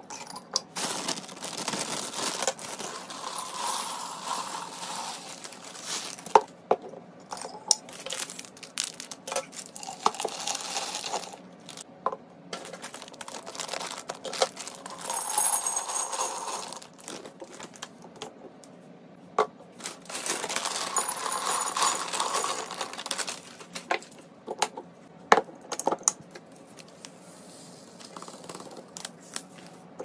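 Dry food being decanted into swing-top glass jars. The wire clasps of the lids click open and shut, plastic food bags crinkle and tear, and dry penne pasta and small seeds pour and rattle into the glass in several stretches of a few seconds each, with sharp clicks in between.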